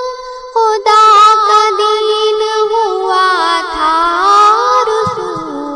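A single voice singing a naat melismatically. It holds a long note, breaks briefly about half a second in, then starts a new phrase of wavering, ornamented runs that slide up and down and settle on a lower held note near the end.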